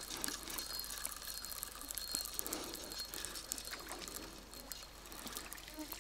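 Spinning reel being cranked to wind in a bottom fishing line, with many small clicks and ticks, over gentle water sounds at the water's edge. Crickets chirp faintly in the background.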